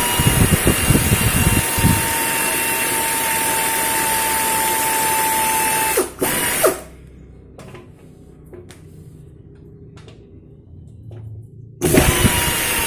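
Pneumatic wrench running on the 12 mm fender bolts: a steady air hiss with a whine for about six seconds, a short second burst, then a few seconds of small clicks and handling before it starts again near the end.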